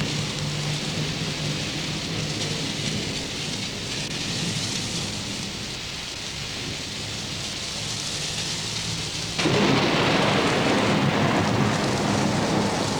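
Thunderstorm sound effect: steady rain with rumbling thunder, then about nine seconds in a sudden, much louder crash of thunder that keeps rolling.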